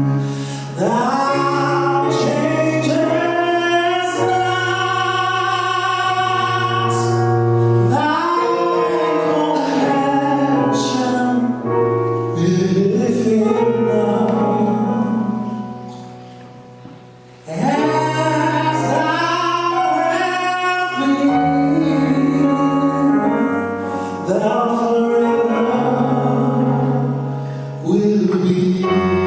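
Gospel music: a woman's solo voice singing a melody over sustained low chords, with a short pause about halfway through before the music comes back in.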